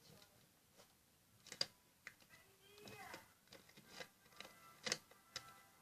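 Sticks of chalk tapping and clicking against a plastic sour-cream tub as they are put in, a few sharp clicks spaced apart, with a faint voice in the background.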